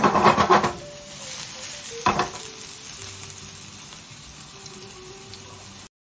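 Hamburger patties sizzling in oil in a nonstick frying pan over high heat, searing the first side to seal in the meat juices. Two louder crackling bursts come at the start and about two seconds in, with a steady sizzle in between; the sound cuts off just before the end.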